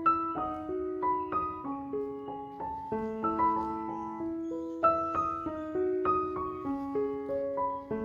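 Background music: a gentle piano melody, notes played one after another in a flowing line.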